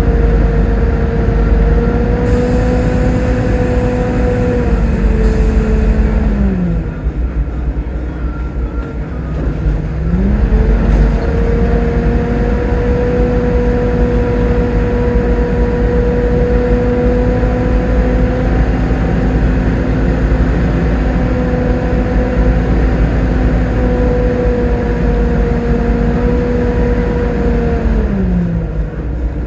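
Volvo B7TL double-decker bus running with a steady hoover-like whine. The whine drops in pitch about six seconds in as the bus eases off, climbs back around ten seconds as it pulls away again, holds steady, and falls away again near the end.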